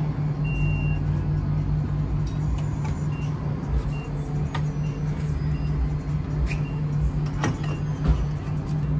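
Nissan 240SX engine idling with a steady, unchanging hum. Several faint short high beeps and a couple of sharp clicks sound over it.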